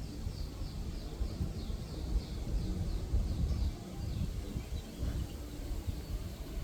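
An unidentified bird calling a quick series of short, high, falling notes, about three a second, that stops a little under four seconds in. A low rumble sits under it and is louder than the calls.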